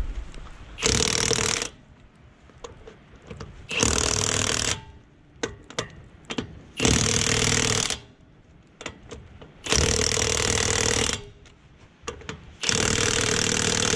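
Impact wrench hammering lug nuts onto a truck wheel in five short bursts of about a second each, a few seconds apart, one nut after another, with small metallic clicks between bursts as the socket is moved.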